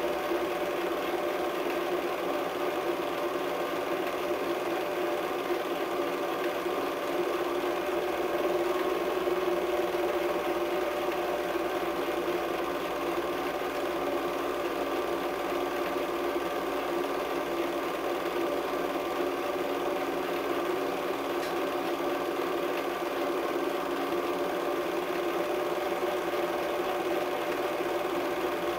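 Film projector running: a steady mechanical whirr and clatter with a constant hum.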